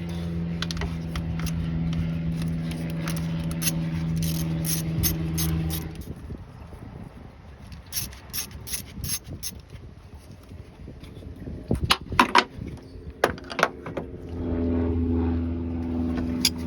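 Ratchet wrench backing out the 10 mm thermostat-housing bolts, with rapid clicking. A steady mechanical hum runs for the first six seconds and comes back near the end, and a few sharp clicks fall in the quieter middle.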